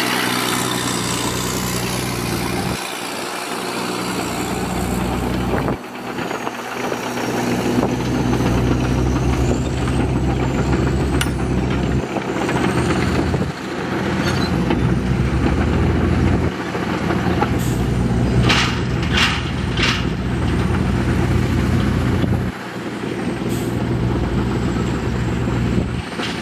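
Heavy diesel engines of earthmoving machines, a bulldozer and dump trucks, running under load in a steady drone with a faint high whine above it, breaking off abruptly several times. About two-thirds of the way through come three short hisses, like air-brake releases.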